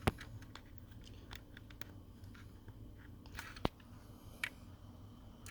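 Small plastic clicks and crackles from a wiring connector and its pins being handled and pressed together, with a few sharper snaps: one at the start, the loudest a little past halfway, and another about a second later.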